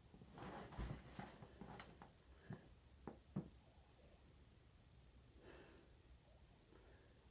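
Faint scuffing and a few soft knocks of a cat pawing and rolling around inside a cardboard box, bunched in the first few seconds, with one more light rustle a little after the middle.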